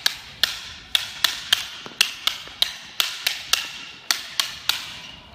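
Hard escrima sticks clacking together as two people trade double-stick strikes in a partner drill, a steady run of sharp clacks about three a second, each with a brief ringing note.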